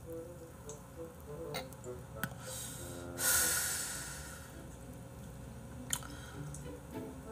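A person breathes in with a soft hiss, then about three seconds in blows out a long, loud exhale that fades over a second or two, as when exhaling a drag of a cigarette. Faint background music plays underneath, with a few light clicks.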